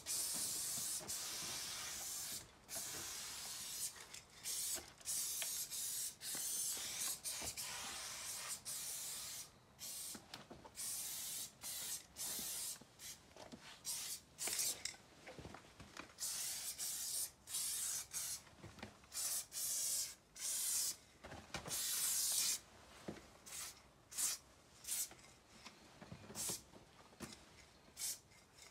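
Aerosol spray-paint can hissing in bursts as it paints a wall: long sprays of a few seconds each over the first several seconds, then many short spurts with gaps between.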